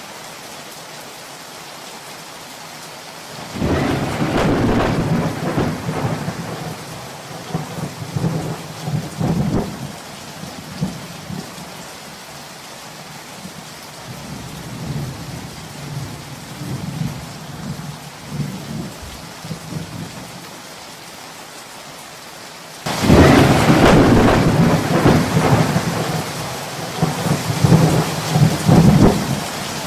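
Thunderstorm: steady rain with two loud thunderclaps, the first about three and a half seconds in and the second near the end. Each clap rolls on into several seconds of rumbling, and lighter rumbles come in between.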